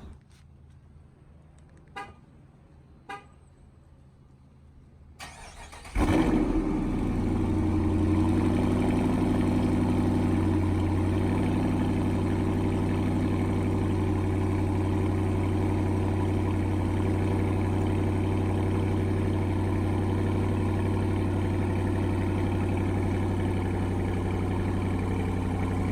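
Two short beeps, then a Dodge Charger R/T's 5.7 L Hemi V8, fitted with an aFe cold air intake, cranks and fires about six seconds in, flares briefly and settles into a steady idle.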